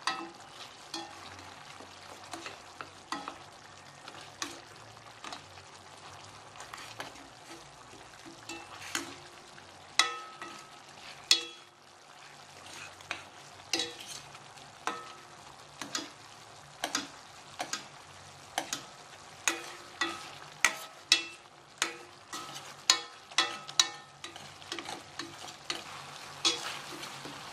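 Sauce bubbling and sizzling in a stainless steel wok while a metal ladle stirs and bastes chicken drumsticks, with frequent sharp clinks and scrapes of the ladle against the pan. The sauce is reducing to a thick glaze.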